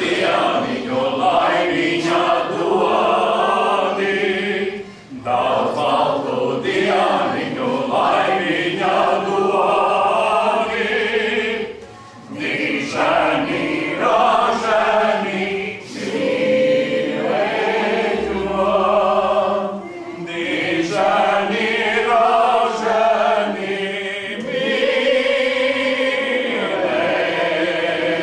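A small group of women and men singing together unaccompanied, in sustained phrases with short breaks between them.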